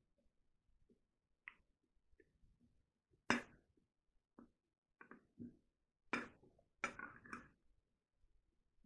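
Metal spoon scraping and clinking against a ceramic bowl as it cuts through steamed zucchini and scoops buckwheat: a handful of short, sharp sounds at irregular spacing, the loudest about three seconds in.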